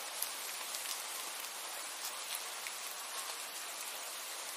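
Steady rain falling: a dense, even hiss with scattered sharp ticks of individual drops.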